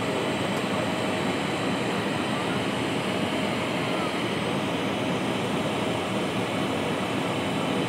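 Steady in-flight cabin noise of an Embraer 175 airliner climbing after takeoff: rushing air over the fuselage blended with the running of its underwing GE CF34-8E turbofan engines, even in level, with a faint steady whine.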